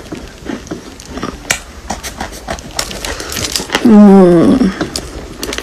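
Chalk and clay being crunched, a run of irregular sharp cracks and crumbles. Near the end, a short low voice-like hum falling in pitch stands out as the loudest sound.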